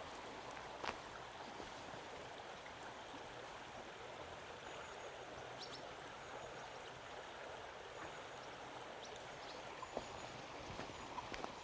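A stream running steadily with an even rushing sound, with a few faint short clicks over it.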